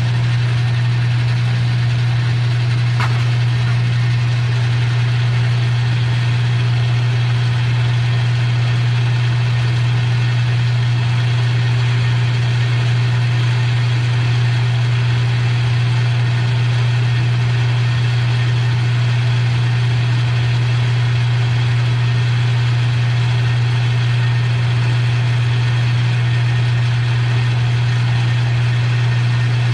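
Metal lathe running steadily under power while taking a turning cut on a steel part, a constant strong hum with a haze of cutting and motor noise above it.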